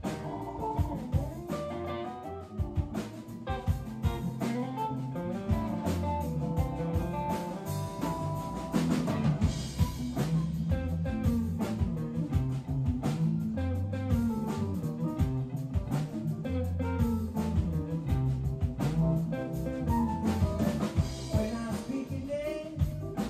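Live band playing an instrumental passage with no singing: electric guitar, bass guitar and drum kit.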